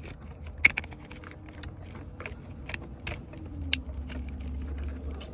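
Scattered light clicks and taps of plastic dashboard trim and wiring connectors being handled during a car stereo install, over a steady low hum.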